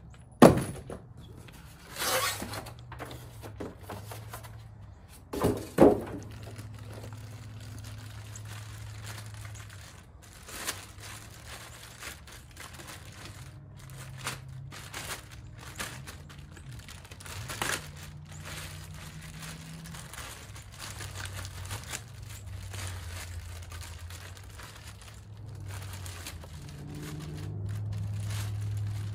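Winch parts being unpacked from a cardboard box: a few sharp knocks in the first six seconds as parts are handled, the last the loudest, then plastic packaging crinkling and rustling.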